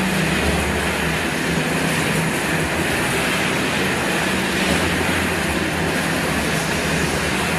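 Corn-snack production machinery running steadily: a low motor hum under a constant hiss as a stainless-steel drum tumbles puffed corn snacks and spills them out of its open end.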